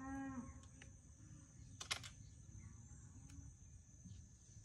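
A cow lowing briefly at the start, over a steady high chirr of crickets. A single sharp click comes about two seconds in.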